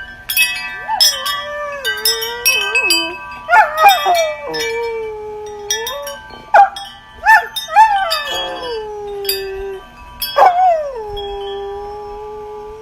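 A dog howling: four long howls, each sliding down and then held. Chimes are struck and ring on behind the howls.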